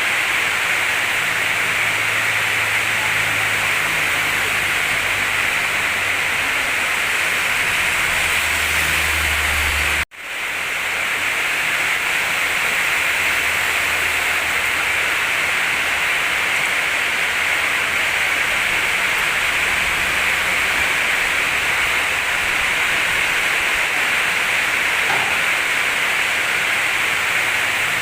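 Heavy rain and a fast-flowing river make a steady, loud hiss, with a faint low hum from the excavators' diesel engines underneath. The sound cuts out abruptly for a moment about ten seconds in, then returns.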